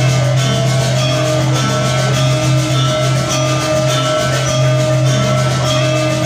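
Background music: an instrumental track of short, changing pitched notes over a steady low hum.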